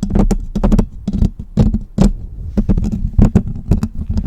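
Quick, irregular tapping close to the microphone, several taps a second, each a sharp click with a low thud, as in ASMR textured tapping.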